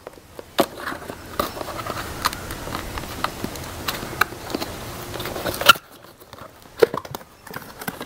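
Small cardboard box being handled and opened: a steady rustle and scrape of card with scattered clicks, stopping about six seconds in, then a few light knocks.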